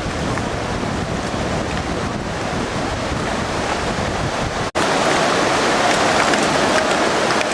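Rushing river water with wind buffeting the microphone. The sound cuts out for an instant about two-thirds of the way through, then the rushing water comes back louder.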